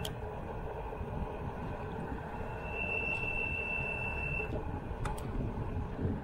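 Wind rushing over the microphone and tyres rolling on a paved road while riding, a steady low rumble. A steady high-pitched whine comes in about two and a half seconds in and cuts off abruptly about two seconds later.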